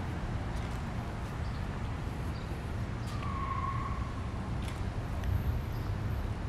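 Street traffic on a busy avenue: a steady low rumble of passing cars. About three seconds in, a brief high tone lasting about a second slides slightly downward.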